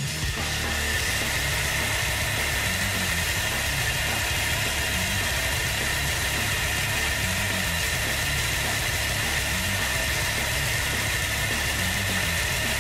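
RC buggy running on a roller test rig: the wheels and rollers spin steadily, a continuous mechanical whir with a pulsing low rumble as the rollers bounce the car's oil-damper suspension.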